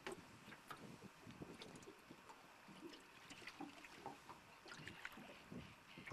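Near silence: faint water lapping at the hull of an aluminum boat, with scattered small clicks and soft taps.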